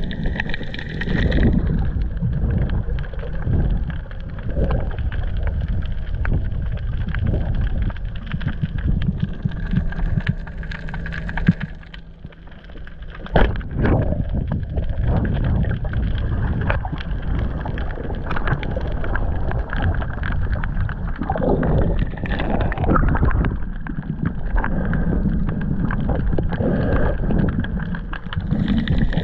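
Muffled sloshing and gurgling water, heard through an underwater camera housing while a spearfisher swims. Two sharp clicks come near the middle.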